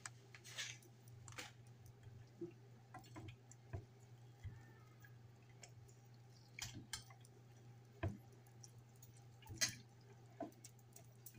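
Faint, scattered taps, crinkles and wet squishes of hands sprinkling seasoning onto raw chicken and rubbing it in, over a steady low hum.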